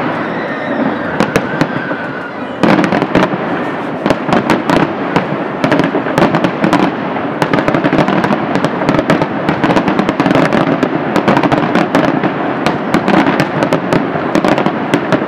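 Aerial fireworks display going off in a dense barrage: many sharp pops and crackles over a continuous rumble, growing louder about two and a half seconds in.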